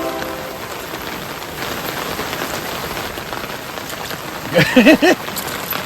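Steady rain falling, an even hiss throughout. A short voiced sound, like a brief exclamation, comes in about four and a half seconds in and is the loudest moment.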